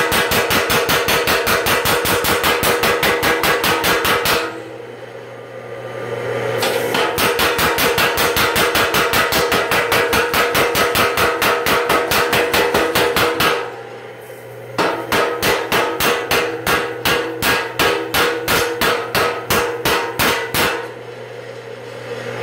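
Home-built power hammer with a 55-pound ram striking a red-hot steel billet on its anvil: rapid, evenly spaced blows, several a second, in three runs, with short pauses about four and thirteen seconds in and a stop near the end. In the pauses the machine's drive keeps up a steady low hum, and the last run is slower than the others.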